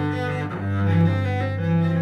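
Strunal Schönbach 'Bern' full-size concert cello, with a solid spruce top, solid maple back and Thomastik Alphayue strings, being bowed in sustained low notes, changing note about half a second in.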